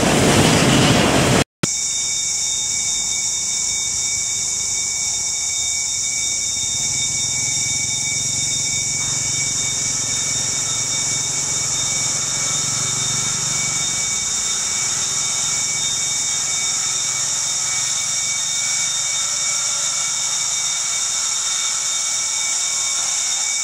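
A container freight train rolling past close by, cut off abruptly after about a second and a half. Then a steady high-pitched hiss, with a faint low rumble from a diesel locomotive approaching in the distance, strongest for a few seconds in the middle.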